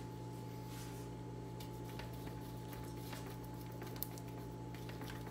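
Faint handling of wet dough batter in a plastic food-processor bowl as its sides are scraped down by hand, with a few light clicks against the plastic. A steady low hum runs underneath.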